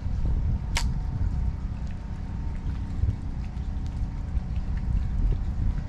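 Wind buffeting the microphone with a steady low rumble, over a faint steady hum. One sharp click a little under a second in.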